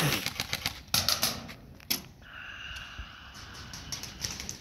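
Airsoft guns firing in rapid bursts: quick runs of sharp cracks through the first second and a half, and more shots near the end. In between, a steady high tone lasts about two seconds.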